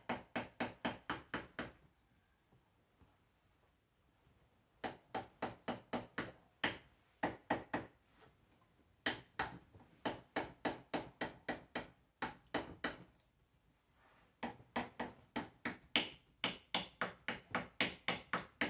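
Small hammer tapping tacks in quick runs of light strikes, about five a second, with short pauses between the runs.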